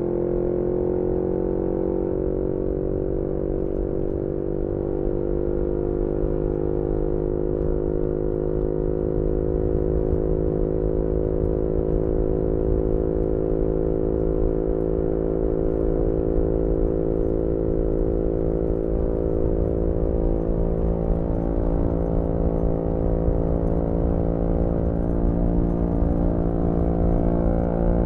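Yamaha MT-125's single-cylinder engine through a GPR aftermarket exhaust, held at steady revs while the bike cruises, heard onboard over wind and road rumble. The pitch sags slightly late on and rises again near the end.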